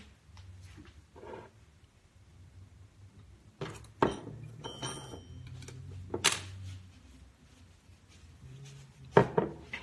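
Kitchenware being handled on a counter: a few sharp knocks and clinks, the loudest about four, six and nine seconds in, with a brief ringing clink near the middle, over a low steady hum.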